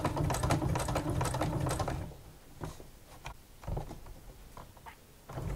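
Domestic sewing machine stitching at speed, with a fast, even rattle, for about two seconds: a few reverse stitches to lock the start of the seam. It then stops, with a few light clicks, and starts stitching again just before the end.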